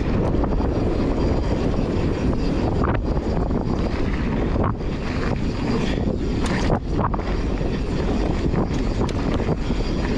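Wind rushing over a GoPro's microphone as a mountain bike rolls fast down a dirt singletrack, with steady tyre rumble and a few sharp clicks and rattles from the bike.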